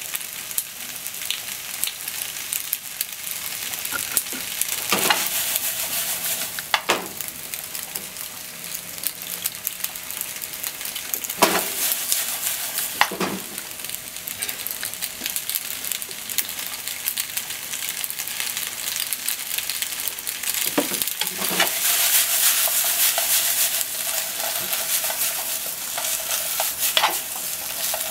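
Macaroni, onion and other ingredients sizzling as they stir-fry in a frying pan. It is a steady hiss, broken a handful of times by a sharp scrape of the stirring utensil against the pan. The sizzling grows louder for a few seconds past the two-thirds mark.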